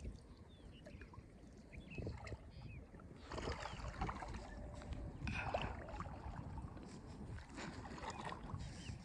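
Water splashing and sloshing in three bursts, the first starting about a third of the way in, over a low rumble of wind on the microphone. Birds chirp briefly in the first few seconds.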